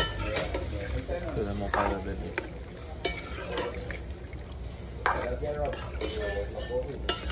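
A long-handled metal spoon stirring pieces of rabbit meat in a large metal pot over a wood fire, scraping and knocking against the pot a few times while the meat sizzles.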